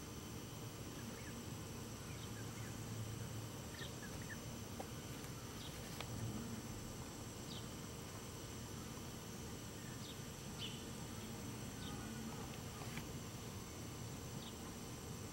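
Faint summer outdoor ambience: a steady insect hum, with scattered short, high peeps from wild turkey poults foraging close by.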